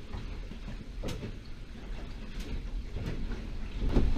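Low, steady rumble inside a small sailboat's cabin while under way, with several short knocks and creaks from the boat's fittings, the loudest near the end.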